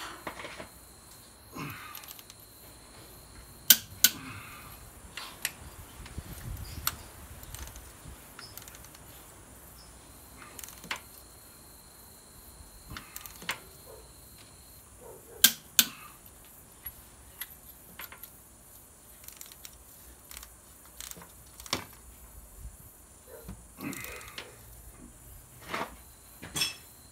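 Torque wrench and socket tightening diesel cylinder head bolts: scattered sharp metallic clicks, some in quick pairs, with light ratcheting and clinking between them.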